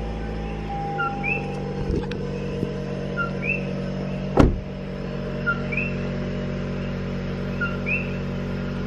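A car engine idling, with a car door shut with a thump about four seconds in. A short two-note chirping call repeats about once a second in the background.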